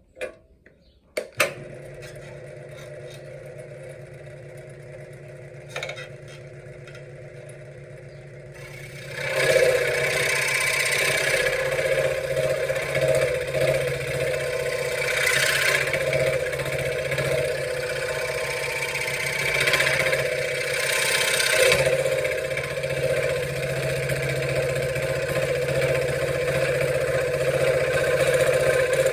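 A few clicks, then a benchtop scroll saw's motor starts and runs steadily. About nine seconds in the blade begins cutting wood: the sound turns much louder and noisier and keeps going steadily, swelling now and then as the cut goes on.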